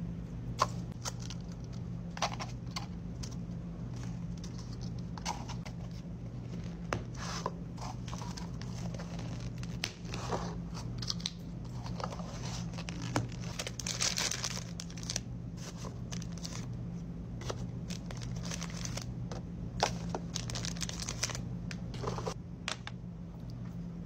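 Clear plastic cups, domed lids and small items being handled on a table: scattered clicks, taps and crinkly rustling, with a longer crinkle about halfway through. A steady low hum runs underneath.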